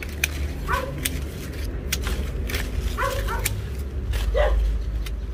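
Hand pruning shears snipping a custard apple tree's branches, several sharp clicks, over a low rumble of wind on the microphone. About six short yelping calls, like a dog's, come in the background.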